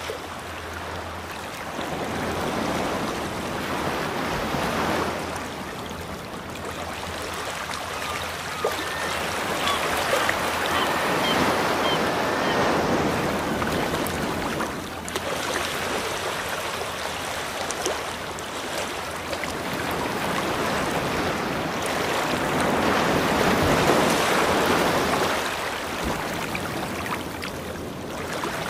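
Ocean surf ambience: a steady wash of waves that swells and fades every several seconds.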